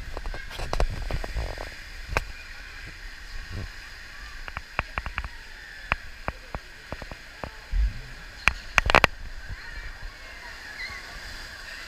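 Water park ambience: splashing, running water and distant voices, over which come scattered sharp knocks and clicks, with a cluster of loud ones near the end.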